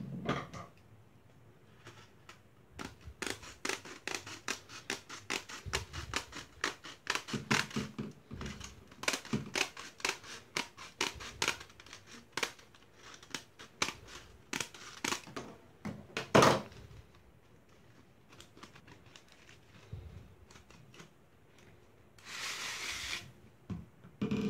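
Scissors cutting fine metal wire mesh: a fast run of sharp snips for about a dozen seconds, one louder snip near the end of the run. Near the end comes a brief scraping rustle of the mesh.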